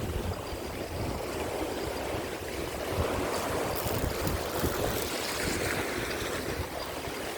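Waves surging and washing over sea rocks, with wind gusting on the microphone as a steady low rumble.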